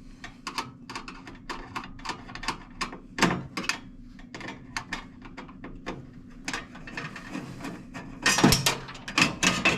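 Screwdriver backing a screw out of a metal range hood side panel: a run of small metallic clicks and scrapes, a few a second, with a louder clatter near the end, over a faint steady low hum.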